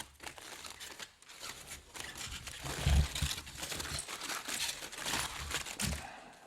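Wrapping around a cooked beer-can chicken crinkling and rustling as it is pulled open by hand, with a few dull thumps about three seconds in and near the end.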